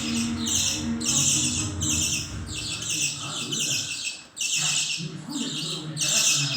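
A group of budgerigars chattering, with harsh squawking calls repeating about twice a second.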